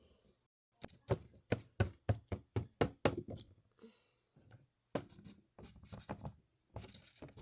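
Small plastic toy figures tapped along a hard surface: quick runs of light clicks, several a second, with a short pause in the middle.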